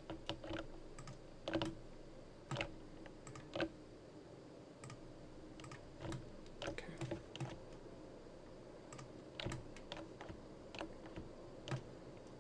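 Computer keyboard keys and mouse buttons clicking at uneven intervals, in small clusters, over a faint steady hum.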